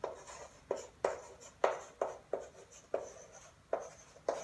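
Chalk writing numerals on a blackboard: about nine sharp chalk taps and strokes at an uneven pace, each with a short scrape.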